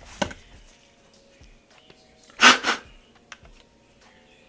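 Small clicks and handling noises from the parts of a SAR9 compact pistol being fitted back together, with one loud, short rushing burst about halfway through.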